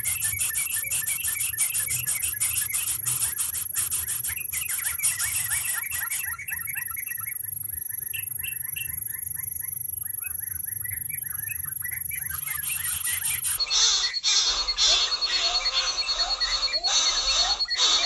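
Nestling birds squeaking in short, high, rising calls repeated several times a second. The background sound changes abruptly about three-quarters of the way through.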